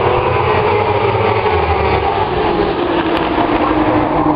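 A pack of racing superbikes accelerating past at full throttle on the race start, many engines at high revs blending into one loud, continuous sound with shifting pitches.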